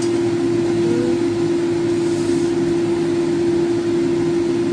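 A steady motor hum with one constant, unchanging tone over an even whooshing noise, the sound of a running fan or kitchen appliance motor.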